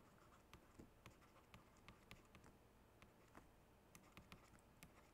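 Faint, irregular ticks and light scratching of a stylus writing on a tablet, over near-silent room tone.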